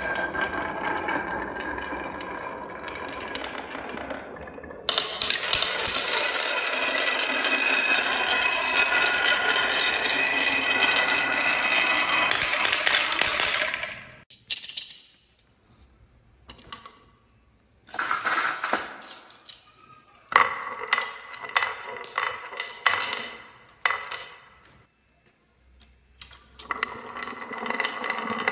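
Many marbles rolling and clattering down a wooden HABA marble-run track in a dense, continuous rattle. About halfway through the rattle stops, leaving scattered single clicks and clacks of marbles striking the wooden pieces.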